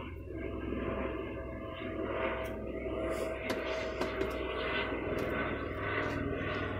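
A steady low mechanical drone with an even hiss. A few faint clicks come midway, as a hand screwdriver turns screws out of a plastic keyboard base.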